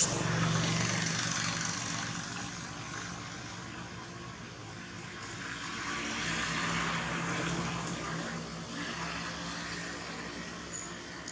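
Distant engine drone that swells and fades twice, a low hum under a broad hiss, with a sharp click right at the start.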